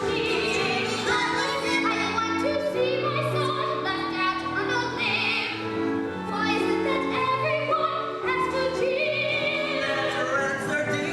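A voice singing a musical-theatre song in a held, vibrato style over instrumental accompaniment.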